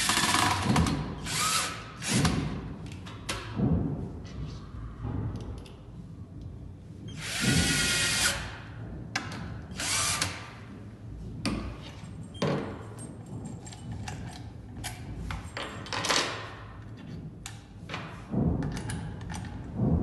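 Cordless drill-driver driving screws through a mortise lock's metal faceplate into a wooden door edge, in several short bursts, the longest about a second, with clicks and knocks of handling between.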